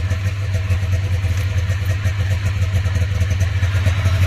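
A vehicle engine idling steadily, a low even drone.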